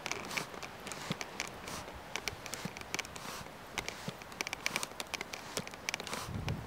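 Wood-charcoal forge fire crackling and popping in many sharp, irregular snaps as it is fanned with air. A low rush of air comes up about six seconds in.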